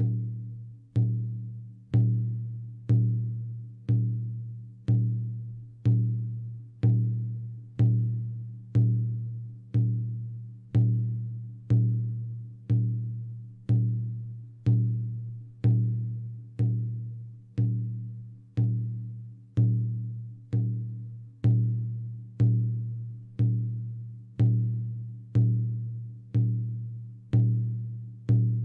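A single drum beaten at a steady pace of about one stroke a second, each stroke a sharp hit followed by a low ringing tone that dies away before the next: a shamanic journeying drumbeat.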